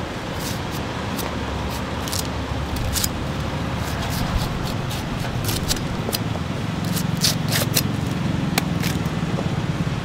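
A knife cutting and prying open a durian's tough spiky husk: irregular sharp clicks, cracks and scrapes, thickest about seven to nine seconds in, over a steady low rumble like traffic.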